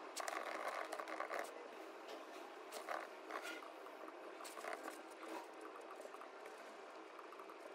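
Typing on a MacBook laptop keyboard: soft, irregular key clicks over a faint steady room hum, with a denser run of noise in the first second or so.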